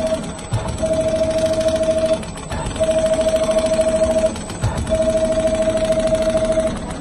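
Richpeace automatic rotating-head sewing machine stitching leather upholstery: fast, even needle ticking under a steady motor whine. It runs in three stretches of about a second and a half, with short pauses between as it sews the straight sides of a diamond quilting pattern.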